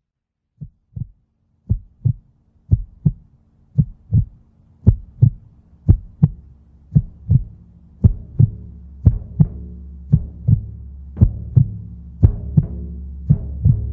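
Heartbeat sound: paired 'lub-dub' thumps about once a second, growing louder. A low sustained musical drone fades in underneath and swells.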